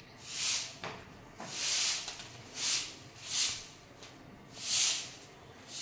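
Long-handled grass broom sweeping a paved street, five dry swishes about a second apart.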